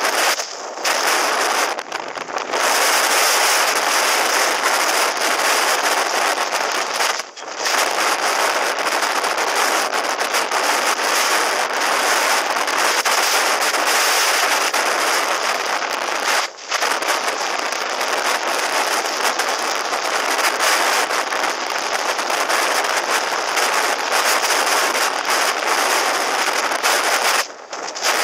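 Heavy, crackling wind noise on a helmet-mounted camera microphone from riding a motorcycle at highway speed, with no clear engine note through it. It dips out briefly a few times.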